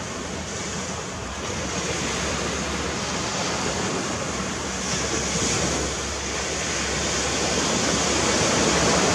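Steady wash of surf breaking on a beach, a continuous rushing noise that swells a little toward the end.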